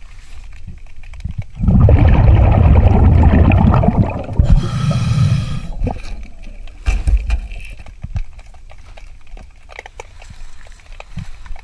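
Underwater scuba breathing. About two seconds of exhaled bubbles rush and gurgle out of the regulator, then a shorter hiss comes from an inhale through the regulator. After that there are only faint underwater clicks and gurgles.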